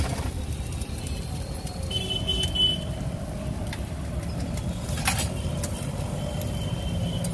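Outdoor street-stall background: a steady low rumble throughout, with a sharp click right at the start and another about five seconds in, and a brief high tone around two seconds in.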